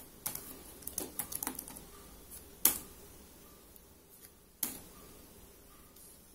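Computer keyboard being typed on: a quick run of soft key clicks in the first two seconds, then two louder single keystrokes, one a little under three seconds in and one near five seconds in.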